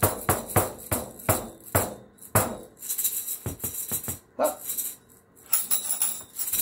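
Meinl headed tambourine beaten with a maraca, the jingles ringing and the maraca rattling with each stroke. The strokes come about three a second at first, then slow and thin out to a few scattered taps.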